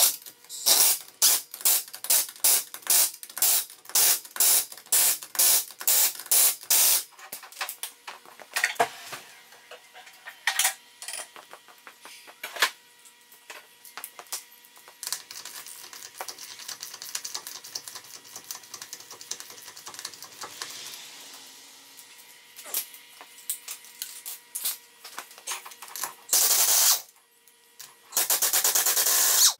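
Pneumatic impact wrench on wheel lug nuts: a quick series of short trigger blips, about three a second, then scattered clicks, and near the end two longer runs as the nuts are run down.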